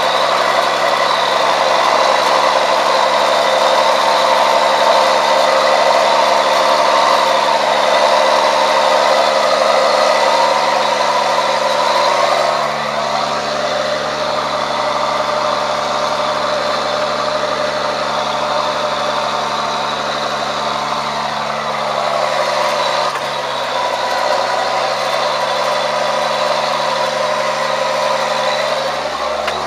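John Deere 7710 tractor's six-cylinder diesel engine running steadily under load while pulling a plough, with a steady high whine over it. The level dips slightly about twelve seconds in and again just before the end.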